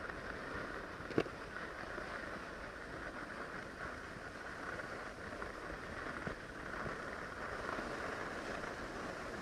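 Steady rushing hiss of skiing downhill: skis sliding over snow with wind on the phone microphone, and a single sharp click about a second in.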